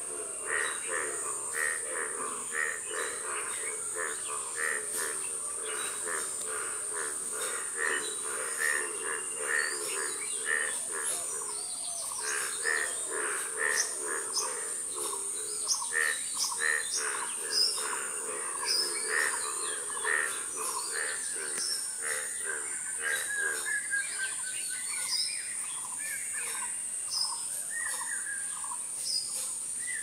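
Forest bird chorus: several birds calling and singing at once, with one note repeated about once a second through the first half and quicker chirping trills later on, over a steady high-pitched whine.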